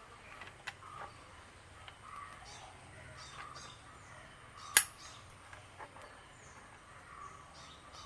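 Birds chirping faintly in the background with short calls that glide down in pitch. There are a few light clicks, and one sharp click a little over halfway through is the loudest sound.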